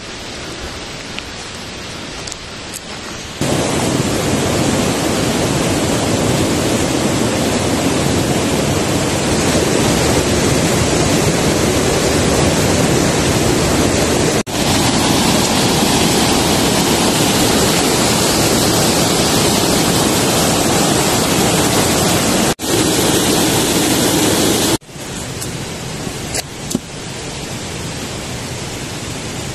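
Mountain stream rushing over rocks: a loud, steady rush of water that starts a few seconds in, breaks off briefly twice, and drops to a quieter rush near the end.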